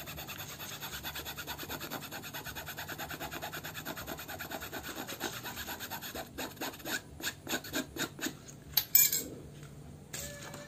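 Metal spoon scraping a thinner-softened sponsor print on a football jersey to lift it off, in quick, even rasping strokes of about seven a second that after about six seconds give way to fewer, harder strokes. One louder sudden sound near the end.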